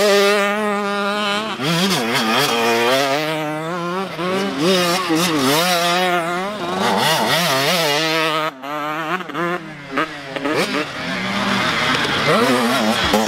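Motocross dirt bike engines revving up and down as riders work the throttle through a dirt-track corner, the pitch rising and falling. There is a short break in the sound about eight and a half seconds in.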